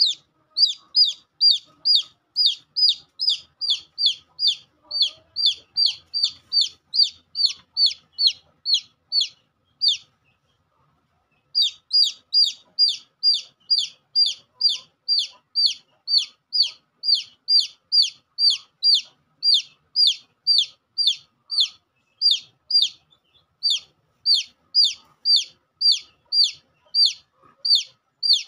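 A domestic chick peeping loudly and steadily, about two to three short high peeps a second, each one falling in pitch. The peeping stops for about a second and a half partway through, then starts again.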